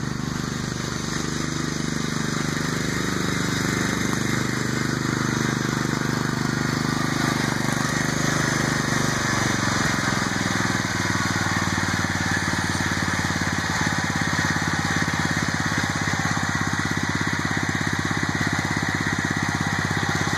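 Kohler Command 15 single-cylinder engine on a Ford New Holland LS35 lawn tractor, running on a Briggs & Stratton impulse fuel pump fitted in place of its original mechanical pump. It grows louder as the tractor drives up, then runs steadily.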